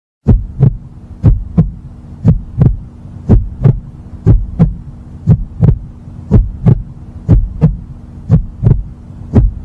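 Heartbeat sound effect: deep double thumps, lub-dub, about once a second over a low steady hum, starting about a quarter second in.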